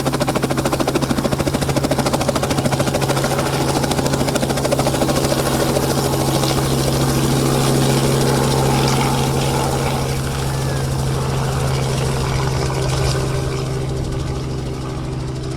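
Helicopter running close by, its rotor beating fast and evenly over a steady low hum. About halfway through it begins to fade slowly, as if moving away.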